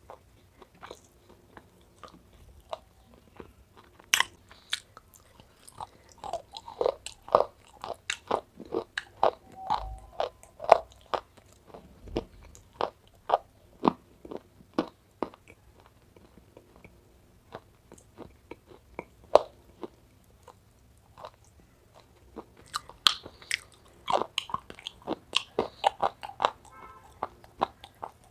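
Close-up crunching and chewing of baked clay pieces coated in a wet paste: sharp, crackly bites and grinding chews in two busy spells, one about a quarter of the way in and one near the end.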